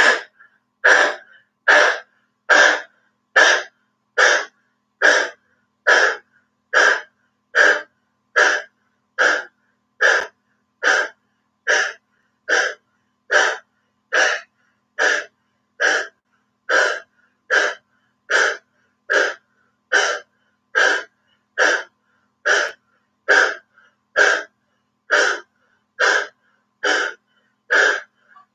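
A woman panting hard with her tongue stuck out in dog breath (lion breath) pranayama: short, forceful, throaty breaths from the back of the throat in a steady rhythm of a little over one a second.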